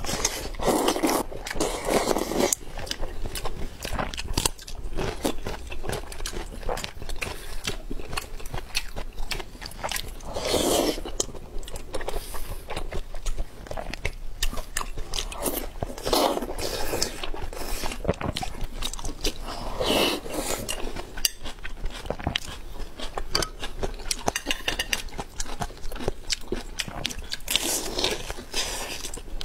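Close-up eating sounds of two people: steady chewing and biting with small wet clicks, and a louder noisy slurp of noodles at the start, with similar louder rushes every few seconds after.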